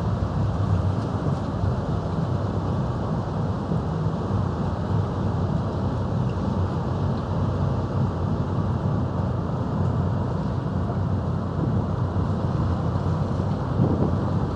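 Passing tugboat's diesel engine running, a steady low rumble.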